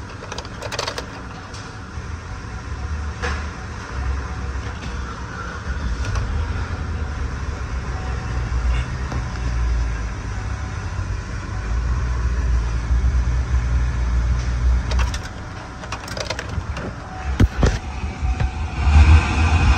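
Chevrolet 5.3L V8 engine idling, heard from inside the cab as a steady low rumble that swells and eases slightly.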